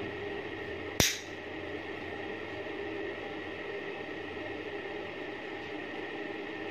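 Steady hiss of room noise with one sharp click about a second in, from handling the shotgun's metal action while oiling it.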